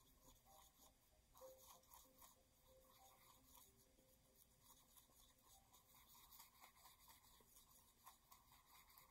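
Faint, repeated scratchy strokes of a paintbrush mixing paint on a paper palette.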